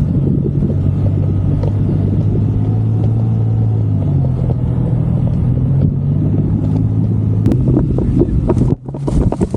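Toyota Tacoma pickup's engine running under load as the truck plows down a slope through deep snow, with a steady low rumble. The engine note shifts about four seconds in, and the sound drops out briefly near the end.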